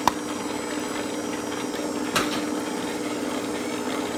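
Sunbeam stand mixer's motor running steadily with a constant hum and whine as its two beaters whip butter and sugar in a stainless steel bowl. Two sharp clicks sound over it, one just after the start and one at about two seconds.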